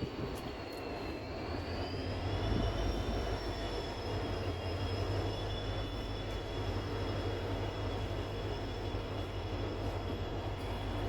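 Passenger train running along the line: a steady low rumble with a high whine that dips slightly and rises back about a second or two in, then holds steady.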